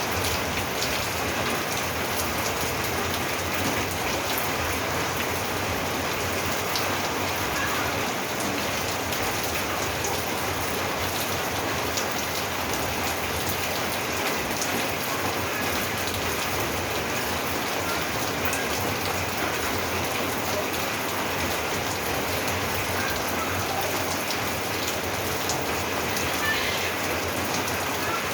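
Steady rain falling on a roof, an even hiss with scattered drop ticks.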